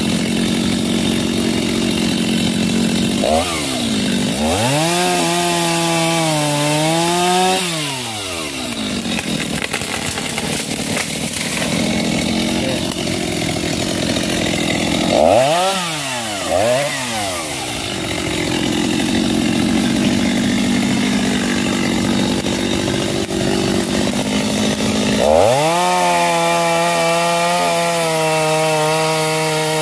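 Stihl petrol chainsaw idling, revved hard for a few seconds, blipped twice, then held at full revs near the end as it cuts into a ketapang tree trunk.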